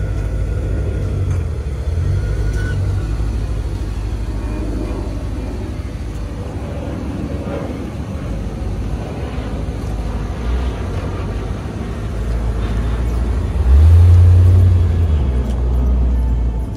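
Gen 1 small-block Chevrolet V8 of a 1989 Corvette running at low speed as the car pulls out and drives off. The engine note swells briefly about fourteen seconds in as it accelerates away.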